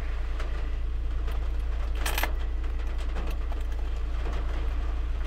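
Steady low background rumble, with a short rustling burst about two seconds in.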